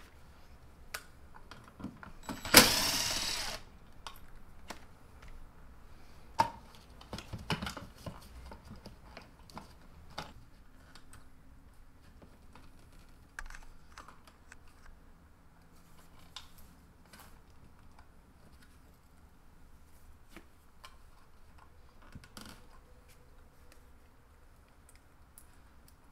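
Scattered light clicks and taps of hands and tools working the wires and screws of an electrical cut-in box, with one loud rush of noise lasting about a second near the start.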